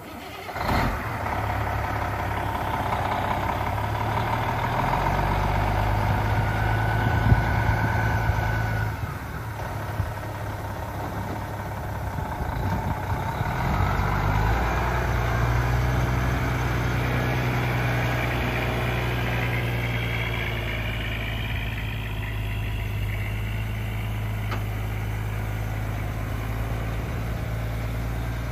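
Diesel semi-truck engine, a 12.7 L six-cylinder Detroit Diesel, catches about a second in and runs. Its speed and level rise and fall a few times before it settles into a steady idle.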